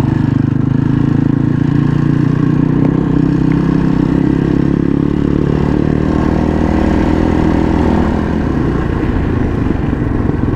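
Kawasaki KLX230's single-cylinder four-stroke engine pulling under load in first gear up a steep climb, a steady drone that turns less even and eases slightly near the end.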